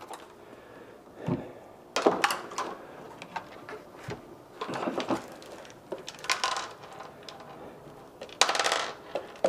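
Scattered clinks, clicks and knocks of small metal hardware, loose screws, being handled, with a louder rattling scrape near the end.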